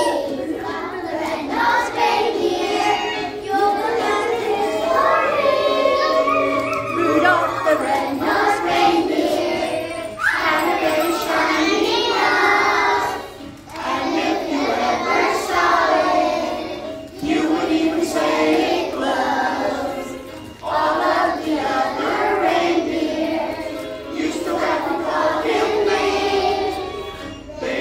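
A group of kindergarten and first-grade children singing a song together, line by line with short breaks between phrases.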